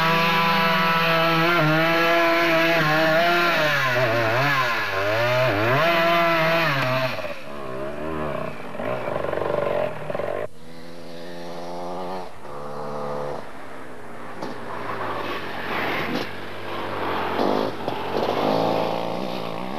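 KTM enduro motorcycle engine revving hard under load as it is ridden up a muddy forest track, its pitch rising and falling with the throttle. After a cut about ten seconds in it is heard again, quieter and further off, still rising and falling in pitch.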